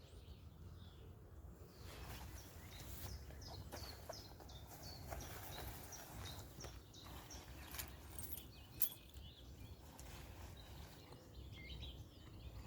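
Small birds singing outdoors, a run of short, high, quickly repeated falling notes, over a low steady rumble. A single sharp click about nine seconds in.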